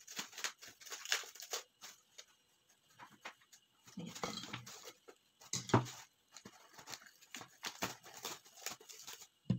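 Plastic cling wrap being pulled off its roll and stretched over a bowl, crinkling and crackling irregularly, loudest a little past the middle.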